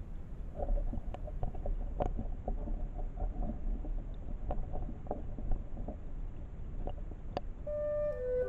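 Stream water heard underwater through a submerged camera: a low, steady rumble of flowing water with scattered clicks and knocks. Music with woodwind tones begins near the end.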